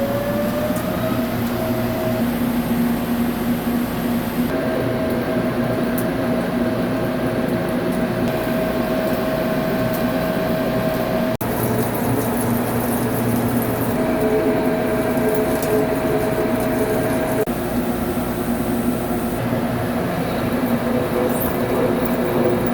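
CNC vertical lathe running: a steady machine hum with whining tones, one of which rises in pitch and then holds steady about a second in. The sound changes abruptly several times as tones drop out and come back.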